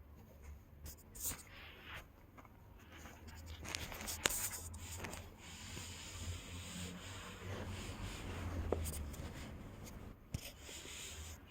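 Rustling and scratching of a fabric cat tunnel as a kitten scrambles in it and claws at it, with a few sharp clicks.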